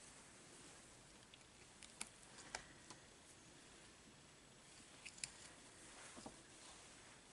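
Latch hook tool working pre-cut yarn through rug canvas: a few small, sharp clicks and light rustles about two seconds in and again around five to six seconds in, over faint steady hiss.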